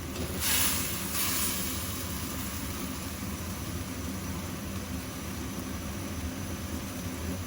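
Eggplant cooking in a pan on the stove: a short burst of sizzling about half a second in, then a steady hiss over a low, even hum.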